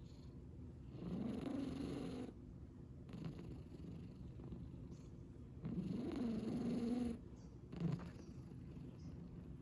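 A sleeping pet snoring: two long snores about four and a half seconds apart, each lasting about a second and a half, with a brief louder sound near the end.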